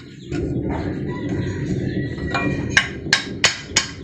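Hammer tapping a ball-joint part into its seat in the suspension arm: a run of about five sharp, ringing metal taps, about three a second, in the second half. Before the taps there is a steady low background noise.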